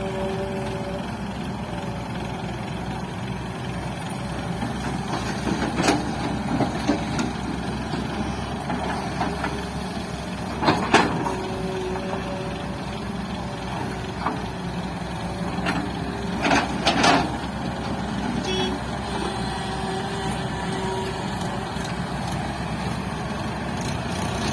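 Tata Hitachi excavator's diesel engine running steadily, with a few sharp knocks and clanks spread through, the loudest about halfway.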